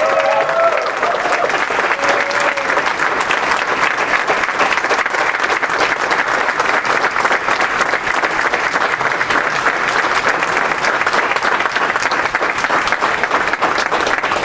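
Audience applauding steadily and loudly, with a voice briefly heard over the clapping in the first few seconds.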